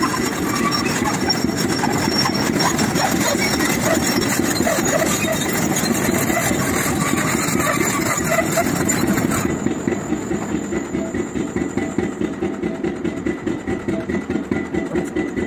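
Liebherr LRH 100 pile-driving rig working, its machinery running steadily and loudly. About nine and a half seconds in, the high hiss drops away and the sound becomes an even pulsing of roughly three beats a second.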